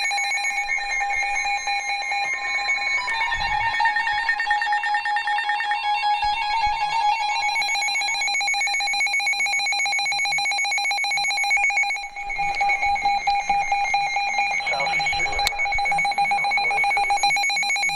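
Emergency Alert System attention signal: a steady two-tone electronic alarm that heralds a severe thunderstorm warning broadcast.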